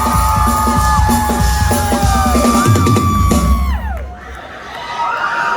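Live rock band playing loud bass and kick drum under held notes that slide down in pitch and cut off about four seconds in, followed by a crowd cheering.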